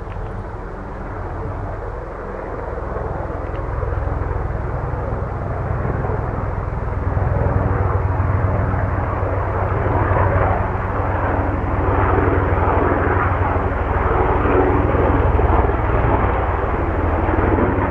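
Helicopter flying over, its rotor and engine drone growing louder over the first several seconds as it approaches, then holding steady.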